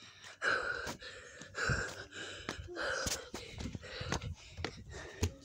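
A person panting, out of breath after running, with a breathy gasp about once a second, mixed with footsteps and small knocks.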